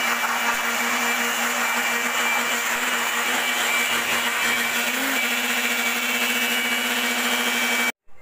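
Handheld electric blower running at full speed, blowing dust out of an open desktop computer case: a steady rush of air with a constant whine from the motor. It cuts off suddenly near the end.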